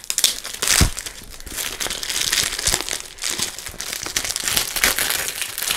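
A plastic bag of cardboard punch-out sheets crinkling and rustling as it is handled and opened, with a single knock about a second in.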